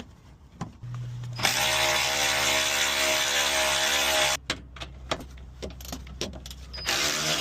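Cordless power driver spinning out the 8mm bolts of a car's splash shield, running steadily at one pitch for about three seconds. Then come a few seconds of short clicks and knocks, and the driver runs again near the end.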